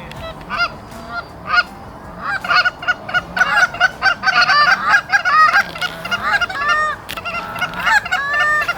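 Canada geese honking and clucking, a few calls at first and then many overlapping calls from about two seconds in, as the flock comes in low over the decoys.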